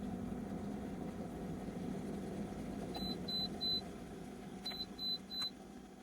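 LONGDEEM electric kettle heating water with a steady low rushing noise. Partway through it gives two sets of three short high beeps, the signal that the water has reached its set temperature. The heating noise dies away after the beeps.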